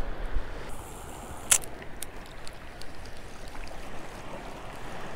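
Calm, shallow surf water lapping steadily around a wading angler, with one sharp click about a second and a half in and a few faint ticks after it.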